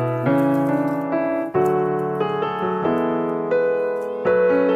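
Background keyboard music: a steady melody over held chords, with new chords struck about a second and a half in and again near the end.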